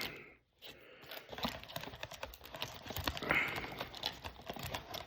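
Irregular light clicking and rustling as sealed foil trading-card packs are handled in their cardboard box, with a brief crinkle about three seconds in.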